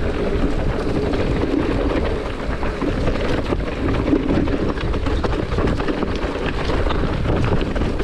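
Mountain bike rolling fast down a rocky trail: a steady rush of wind on the microphone, with tyres crunching over loose stones and a constant rattle of small knocks from the bike.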